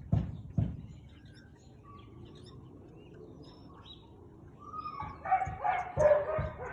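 Husky barking: two short barks at the start, a lull of a few seconds, then a quick run of louder barks with longer, wavering pitched notes from about five seconds in.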